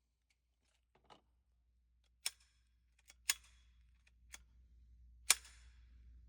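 A few sharp clicks and taps, spread unevenly over several seconds, the three loudest about a second or two apart: gear being handled at the shooting bench between strings.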